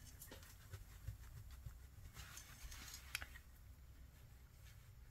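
Faint handling sounds of a small metal tin being rubbed with a cloth: light scratchy rustles and small ticks, with one sharper click about three seconds in, over a low steady hum.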